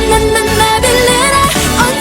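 K-pop girl-group song playing: a pop track with a melodic vocal or synth line over a steady beat.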